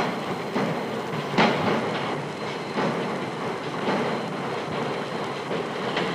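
Drop-forging hammer striking a red-hot steel billet in the die, sharp heavy blows repeating about every one to one and a half seconds over a steady din of machinery.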